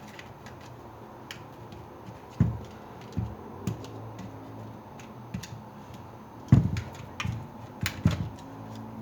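Scattered clicks and knocks as a hammer drill's housing is pried open with a flat-head screwdriver. The sharpest knock comes about six and a half seconds in.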